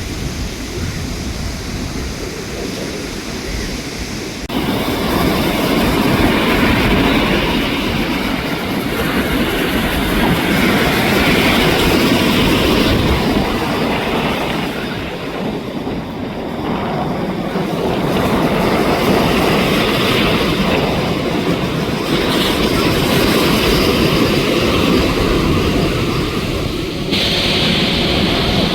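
Jet airliner's engines heard as a loud, steady rushing noise over wind and surf, changing suddenly about four seconds in and again near the end.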